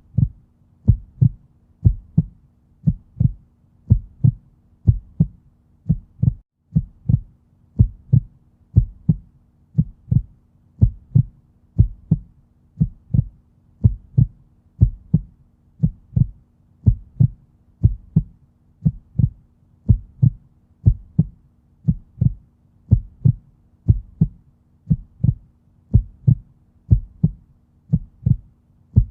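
Heartbeat: a steady lub-dub double beat, about one a second, over a faint steady low hum.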